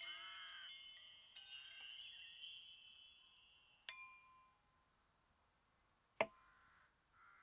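Wind chimes tinkling with many high ringing tones that fade out over the first four seconds or so, followed by near quiet and a single sharp click about six seconds in.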